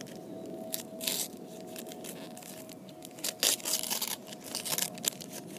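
Sticker packet wrapper being torn open and crinkled by hand, in several short crackly bursts.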